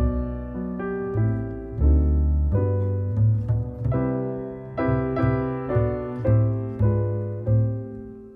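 Background piano music: a stream of struck notes and chords over low bass notes.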